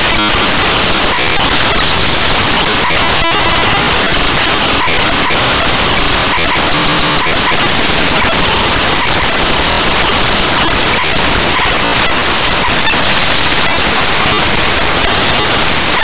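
Raw bytes of the Cinebench 2024.1.0 executable played back as 8-bit mono audio at 32 kHz: loud, steady, harsh static-like digital noise, with a brief click about three seconds in.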